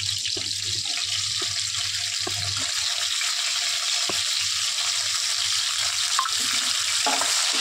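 Diced carrots and green chillies sizzling steadily in hot oil in a wok as chopped tomatoes are tipped in, with a few light clicks of the metal skimmer and steel bowl against the pan.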